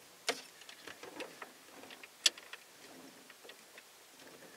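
Light clicks and taps of small ignition-linkage parts being fitted by hand into a Ford F-150 steering column, the sharpest click near the start and another about two seconds in.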